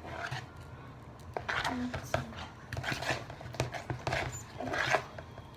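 A utensil stirring sticky fluffy slime in a big bowl, with irregular scraping and clinking strokes against the bowl as borax is mixed into the glue and shaving cream.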